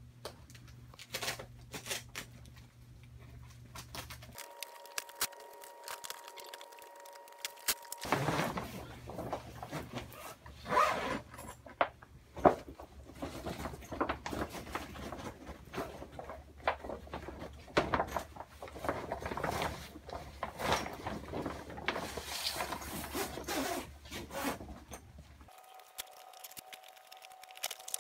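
Stiff, reflective-lined grow-tent fabric rustling and crinkling in irregular bursts as the cover is pulled and worked down over the tent's pole frame. The rustling stops twice for a few seconds, leaving only a faint steady hum.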